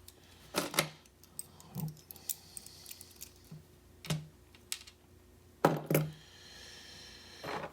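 Small metal lock parts, pin tumblers and springs, clicking and tapping as a pin-tumbler lock is taken apart. There are scattered sharp clicks, with the loudest near the start and about two-thirds through.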